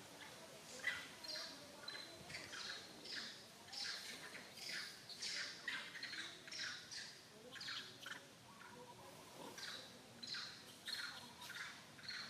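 A quiet run of short, high-pitched chirping calls from an animal, about two a second, with a louder one about a second in.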